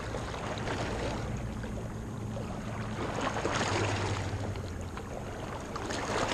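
Small waves lapping and sloshing, with no clear rhythm, swelling about three and a half seconds in and again near the end.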